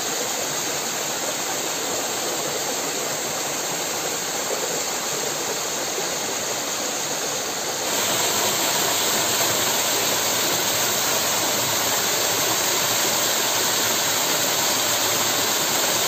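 Small jungle waterfall splashing over rocks into a pool: a steady rushing of water. About halfway through it grows louder as the falling water is heard up close.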